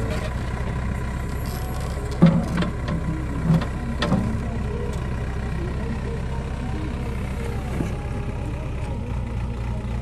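JCB 3DX backhoe's diesel engine running steadily while the backhoe arm works. Several sharp metal clanks come between about two and four seconds in, the first the loudest, as the small bucket comes off the dipper arm.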